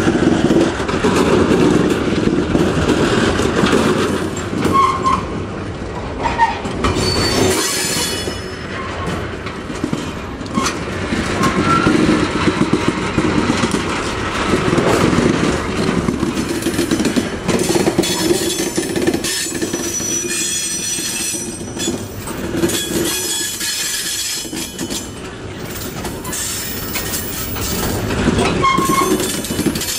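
Class 03 diesel shunter D2112 running steadily as it hauls a rake of empty wagons, with wheels squealing at times, about 8 seconds in and again from about 18 to 22 seconds, and clattering over rail joints.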